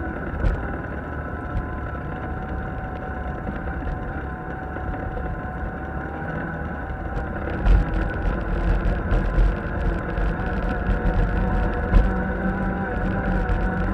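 Off-road vehicle engine running steadily under way, with a steady whine over the rumble. From about eight seconds in, frequent knocks and jolts as it drives over rougher ground.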